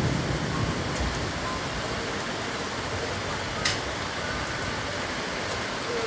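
Steady hiss of rain in a thunderstorm, with a low rumble dying away in the first second and a single sharp tick about three and a half seconds in.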